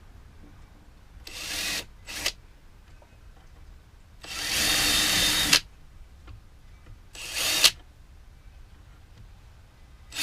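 Cordless drill driving screws into a wooden wall panel in short bursts: a brief run about a second in with a quick blip after it, a longer run of over a second about four seconds in, and another short run near seven seconds. Each burst stops sharply.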